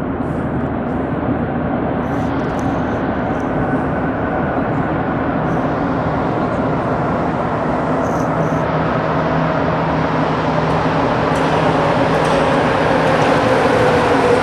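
Rubber-tyred Montreal Metro train, the older MR-63 model, approaching and pulling into the station. Its rumble grows steadily louder, and a whine falls in pitch over the last few seconds as the train slows alongside the platform.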